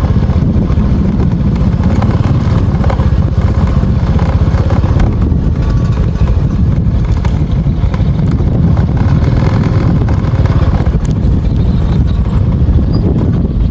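Wind buffeting the microphone: a loud, steady, low rumble with no clear engine pitch.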